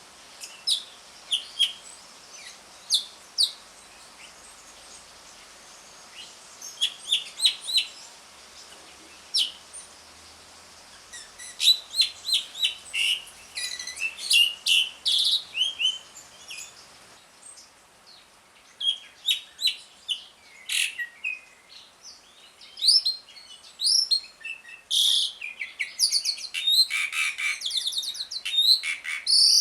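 Pied starling (jalak suren) calling: scattered sharp, high whistles and chips at first, building about halfway through into dense, rapid chattering with fast trills.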